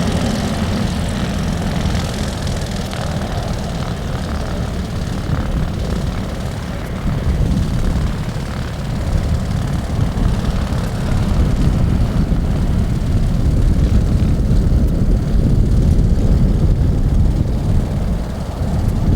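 Low jet roar of a Douglas DC-8-55F freighter's four Pratt & Whitney JT3D turbofans on take-off, steady, growing a little louder past the middle and dipping briefly near the end.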